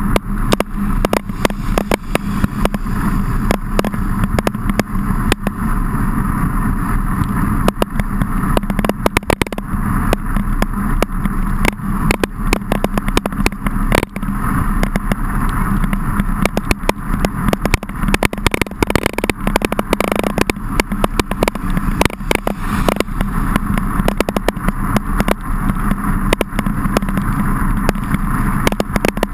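Riding noise of a mountain bike in heavy rain, heard through a handlebar-mounted camera: a steady rumbling wash of wind and tyre noise, broken by dense, irregular clicks and knocks from the rough ride and the rain on the camera.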